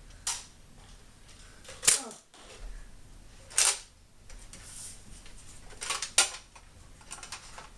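Nerf blasters firing darts: four separate sharp shots at uneven intervals, the loudest about two seconds in.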